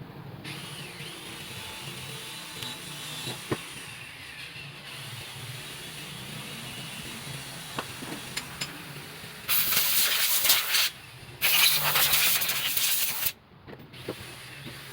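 A steady low hum with a few light clicks, then two loud bursts of hissing, each lasting a second or two with a short break between them.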